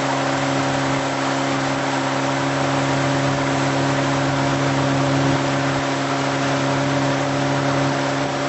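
A tow boat's engine running steadily at towing speed, holding one even pitch, with a steady hiss of rushing air and water over it.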